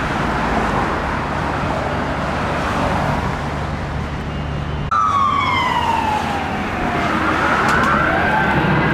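Steady noise of street traffic. About five seconds in, an emergency vehicle's siren starts up loudly, wailing down and then back up in pitch.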